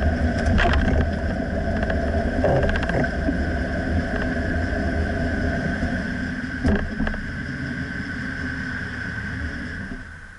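A 2009 Dodge Ram pickup running and rumbling low, with a few short knocks in between, dying away near the end. The knocks are the sort of clunk the owner cannot pinpoint and suspects comes from the rear differential.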